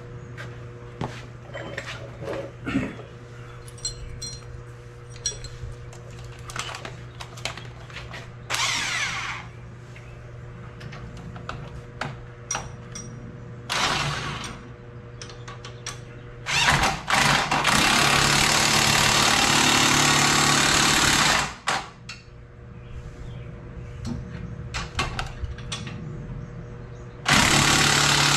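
A power tool runs in bursts as it tightens a bolt on a VW Golf's newly fitted strut: two short runs, then one of about five seconds, and another short one near the end. Scattered clicks and knocks of tools come between the runs, over a steady low hum.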